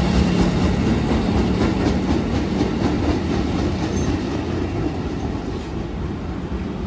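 KRL Commuter Line electric multiple-unit train running along the tracks, its wheel and rail noise and low hum slowly fading as it moves away.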